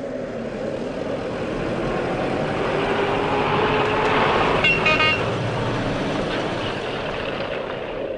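Motor vehicle running, growing louder toward the middle and then easing, with a short toot of its horn about five seconds in.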